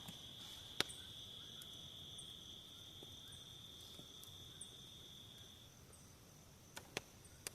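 Night insects such as crickets calling: a steady high trill that stops about two thirds of the way through, another steady trill above it, and faint short chirps repeating about once a second. A few sharp clicks come about a second in and again near the end.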